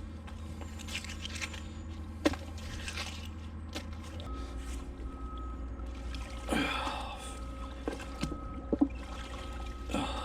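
Scrapes and sharp clicks of metal finds being handled on a neodymium fishing magnet, with a short rushing sound about six and a half seconds in.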